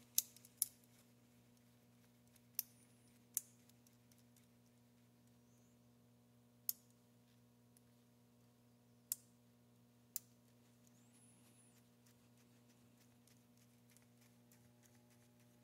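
Near silence with a faint steady hum, broken by about seven sharp, isolated clicks and taps of small metal parts being handled: a steel AR-15 bolt and a bench digital micrometer that is zeroed and closed on it.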